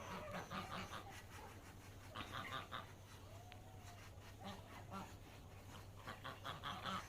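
Ducks quacking faintly in several short, rapid bouts.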